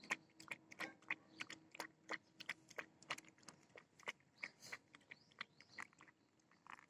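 Puppy eating from a paper plate: faint quick wet clicks of lapping and chewing, several a second, uneven.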